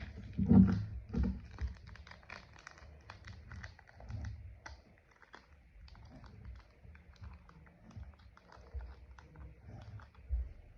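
Slime being squeezed and pressed by hand, giving quick sticky clicks and crackles with a few soft low squelches.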